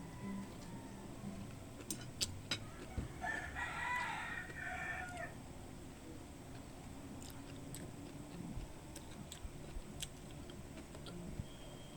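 A rooster crowing once, one call of about two seconds starting about three seconds in, with scattered small clicks before and after.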